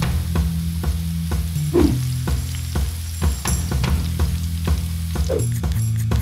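Crackling, sizzling sound like food frying, laid over background music with a steady low bass line. Two short swishes cut through, about two seconds in and near the end.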